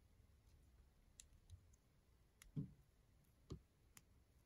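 Plastic LEGO bricks being handled and pressed together by hand: a few faint, scattered clicks, with two louder, duller knocks a little past halfway.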